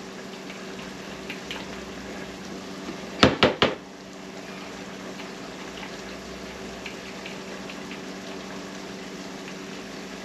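Chicken and bell peppers sizzling lightly in a Dutch oven over a steady hum, with faint scattered crackles. About three seconds in come four quick, sharp taps: a spoon knocked on the pot's rim to shake off the minced garlic.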